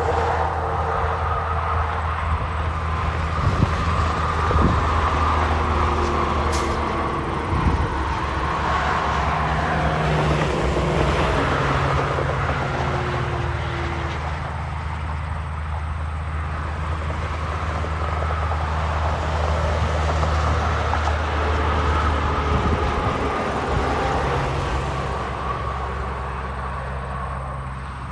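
Highway traffic going by: the low, steady diesel drone of semi-trucks hauling tank trailers, mixed with tyre noise from passing cars, its pitch sliding slowly as vehicles pass.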